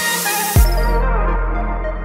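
Electronic background music: a deep bass hit about half a second in, after which the high end drops away and the music thins and slowly fades.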